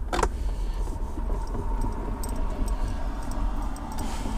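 A Torx screw being driven in by hand, with a few small clicks and scrapes over a steady low rumble.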